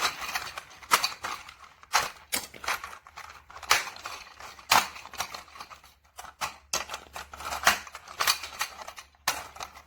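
Interlocking plastic base squares of a Learning Resources Gears toy set clicking and knocking as they are worked apart by one hand: a string of sharp, irregular clicks, about a dozen loud ones among many fainter ones.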